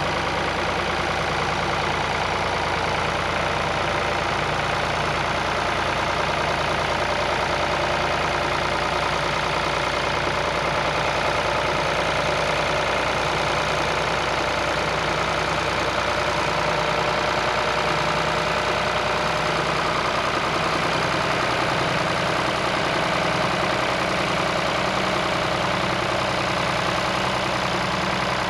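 Tractor engine running steadily at an even speed, with a regular low pulsing.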